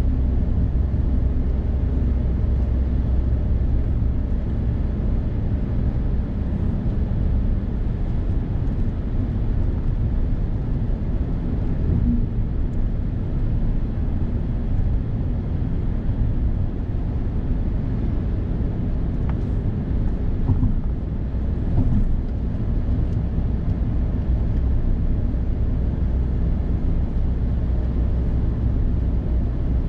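Steady in-cabin driving noise from a Suzuki Hustler cruising on a paved road: a continuous low rumble of tyres and engine, with a few brief bumps partway through.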